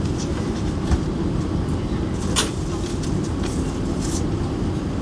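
Airliner cabin noise: a steady low rumble with scattered light clicks and knocks, the sharpest about two and a half seconds in.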